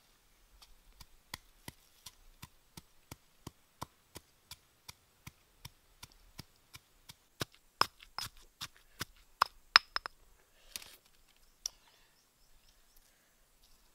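Pestle pounding chili peppers in a small stone mortar: a steady run of sharp knocks about three a second, getting louder and a little quicker about seven seconds in, then stopping about ten seconds in.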